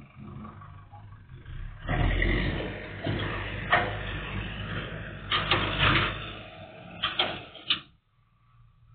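JCB 3DX backhoe loader's diesel engine revving up hard about two seconds in as the machine works its front bucket, with several sharp clanks over it. The engine sound falls away abruptly near the end. Heard thin and muffled through a CCTV camera's microphone.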